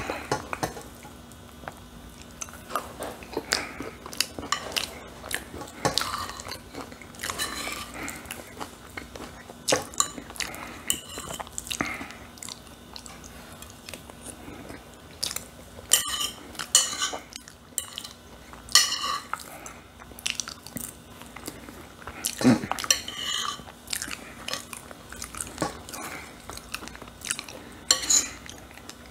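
A metal fork clinking and scraping irregularly on a ceramic plate while someone eats, with chewing and mouth sounds close to the microphone.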